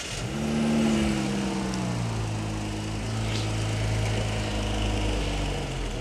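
Chrysler 300's 3.6-litre Pentastar V6 catching on start-up, its revs flaring in the first second, then falling back and settling into a steady idle.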